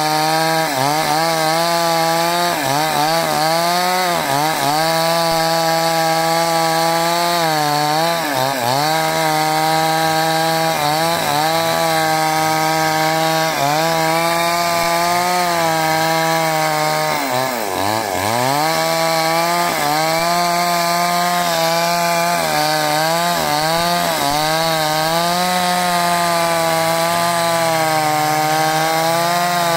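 Two-stroke chainsaw ripping lengthwise through a hard-wood log at high revs. Its pitch dips again and again as the chain bogs in the cut and then recovers, with the deepest dip about 17 seconds in.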